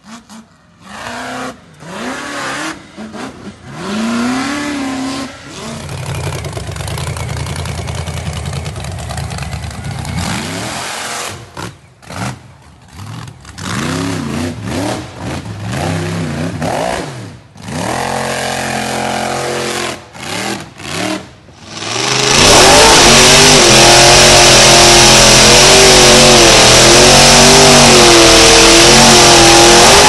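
Rock bouncer buggy engines revving hard in repeated bursts, the pitch sweeping up and down as they climb. About two-thirds of the way through, a much louder engine is held at high revs with a wavering pitch while the buggy's big tyres spin on rock.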